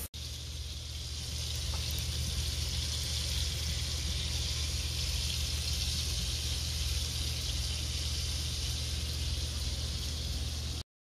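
Bacon cheeseburger patties sizzling steadily in bubbling fat on a Lodge cast iron griddle, with a low steady hum underneath; the sound cuts off suddenly near the end.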